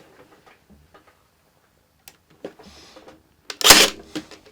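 Ryobi 18V ONE+ compression-drive crown stapler firing once with a loud, sharp clack about three and a half seconds in, after a few light handling clicks. The staples are loaded in the wrong place, so no staple is driven.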